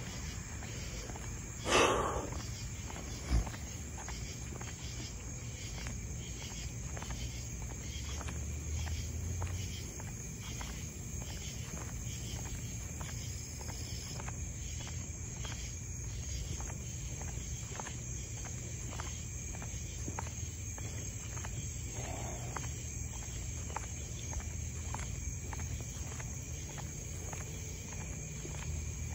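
Footsteps at a steady walk, about two steps a second, over the steady chirring of night insects. A short loud noise comes about two seconds in, and a sharp click shortly after.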